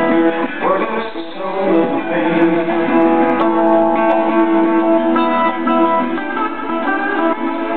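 Live blues-rock band with a slide guitar playing a sustained, gliding melodic line between the sung verses.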